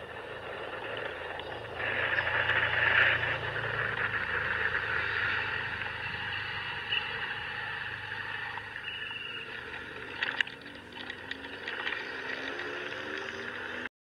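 Motor scooter underway: the engine runs with a steady hum under a rush of road and wind noise, louder for several seconds early in the ride, with a few short clicks about ten seconds in.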